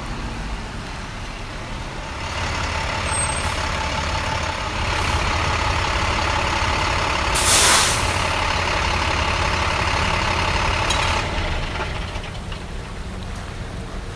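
Heavy work truck running, a steady low rumble that grows louder about two seconds in, with a short loud air hiss a little past the middle, and quieter again near the end.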